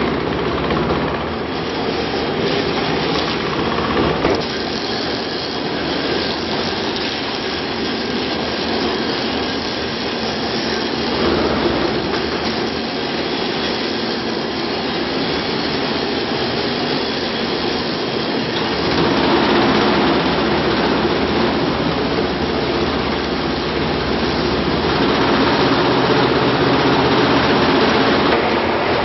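Waste-tire cutting machines running: a steady mechanical drone with clatter from the electric motors and cutters. It grows louder about 19 seconds in.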